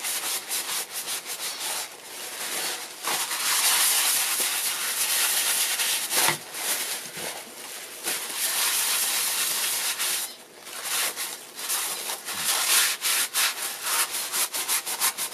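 Crumpled, used wiping paper rubbed firmly around a wooden bowl coated in black urushi lacquer. It is a dense run of quick scrubbing, rustling strokes with brief pauses. This is the first wipe-off, taking the excess wet lacquer off the surface.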